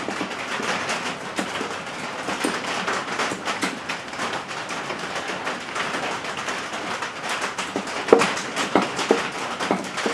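Porta-Power hand hydraulic pump being worked to press out the seized piston of a headless Witte hit-and-miss engine: irregular small clicks and creaks over a steady hiss, with a few sharper squeaky clicks near the end.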